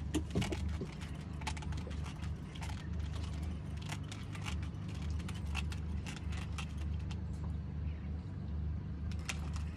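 Fishing reel clicking irregularly as the line is reeled up against a hooked tarpon, the clicks thinning out for a few seconds in the middle, over a steady low hum.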